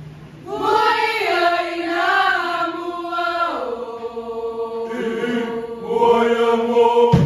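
Choir singing slow, long held notes in unison, a chant-like opening line that slides down to a lower sustained note partway through. A sharp knock comes near the end.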